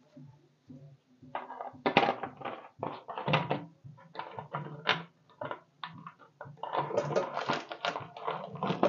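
Hot oil in a kadai crackling and spitting in irregular pops. It starts about a second and a half in and grows denser in the last few seconds.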